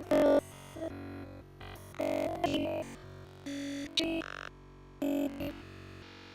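Background electronic music: synthesizer chords in short held notes, with louder stabs about every second or so.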